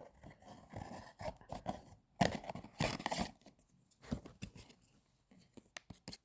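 Blind-box packaging being handled and torn open: crinkling and tearing of the wrapper, with two louder rips about two and three seconds in, then scattered small clicks.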